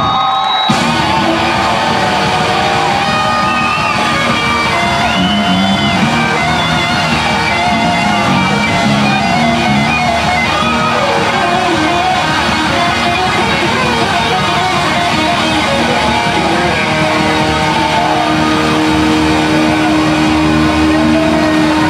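Live funk band playing an instrumental stretch: electric guitar, bass, drums and keyboards, with the full band coming in about a second in. A long held note joins over the last few seconds.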